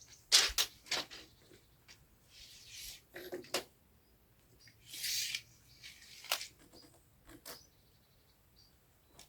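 Scattered sharp knocks and clicks with a few short scrapes, the sounds of timber being handled and set on a stone wall; quieter over the last second and a half.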